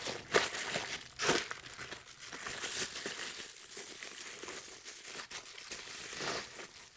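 Plastic bubble wrap crinkling and rustling as it is handled and pulled open, with a few sharper crackles in the first second or so.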